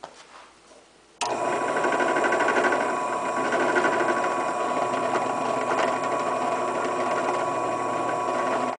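Drill press running, its bit drilling into a small metal part clamped in a vise: a steady motor whine with several even tones that comes in suddenly about a second in and cuts off abruptly near the end.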